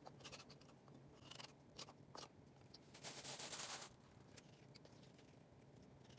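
Metal spoon scraping coconut meat from the inside of a coconut shell: faint scratches and small clicks, with a longer, louder scrape about three seconds in.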